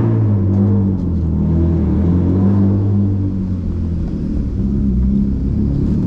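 BMW E36 328i's inline-six engine running steadily at low revs, its note sinking a little through the middle.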